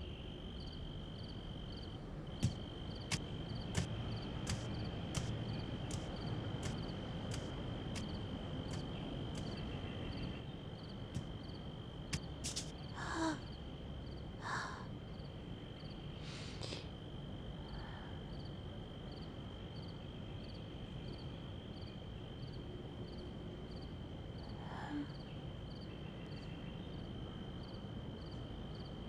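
Night ambience of crickets: a steady high chirring with a faint regular pulse above it. A series of short sharp clicks, roughly one every two-thirds of a second, runs through the first ten seconds, and a few brief fainter sounds come near the middle.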